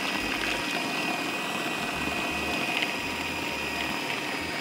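Electric food processor running steadily, with a constant high-pitched motor whine, as it grinds and mixes a potato, walnut, cheese and pea kebab mixture.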